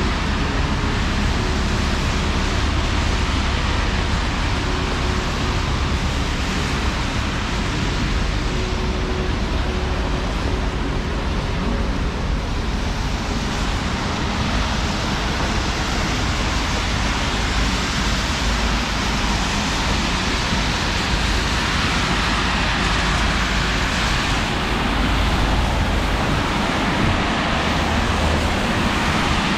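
Steady city traffic on a rain-wet street: an even wash of car engines and tyre noise. A faint steady hum runs under it for the first dozen seconds.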